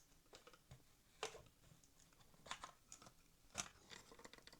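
Near silence with a few faint clicks and taps of small plastic parts being handled, as the model locomotive's body is fitted back onto its chassis.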